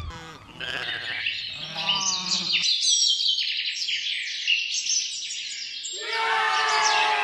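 Livestock bleating a few times, with a longer bleat near the end, over continuous chirping birdsong.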